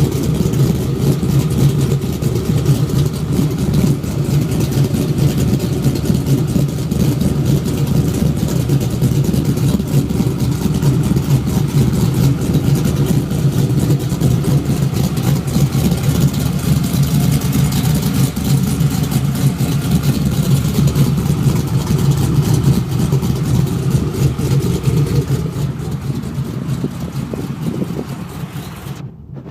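Cammed GMC Sierra truck engine idling steadily, heard through long-tube headers, 3-inch dual catless pipes with an X-pipe, and Borla XR1 oval mufflers dumped before the rear axle. The sound fades over the last few seconds.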